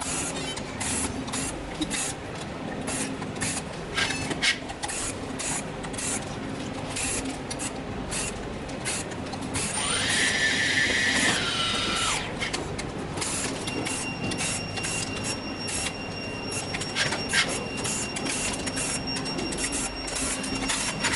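Repeated clicks and rattles of small plastic parts and screws as a drone is taken apart by hand. Near the middle a small motor whirs for about two seconds, and after that a faint steady high whine continues.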